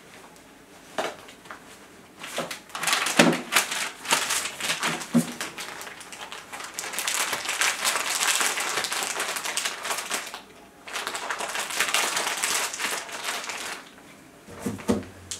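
Close, dense rustling and crinkling in two long stretches with a short break between them, mixed with a few sharp clicks and knocks.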